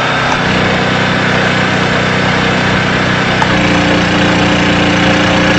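Honda EP2500 economy-series generator's single-cylinder four-stroke engine running under full rated load, a steady hum rated at 69 decibels. Its note shifts about half a second in and again about three and a half seconds in.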